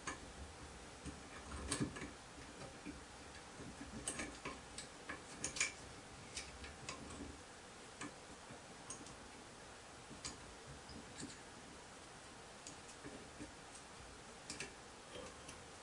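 Faint, irregular small metallic clicks and taps as a small screw is turned with an Allen key and a steel bracket is handled on the workpiece. The clicks bunch up about two seconds in and again from about four to six seconds in.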